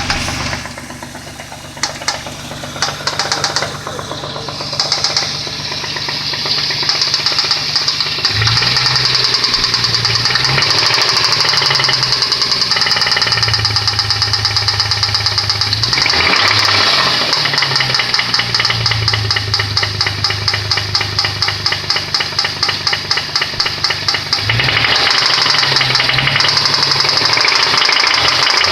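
Nissan VQ20DE 2.0-litre V6 running with a steady rhythmic knock, its engine speed going up and down several times. The knock is a connecting-rod knock, a worn rod bearing.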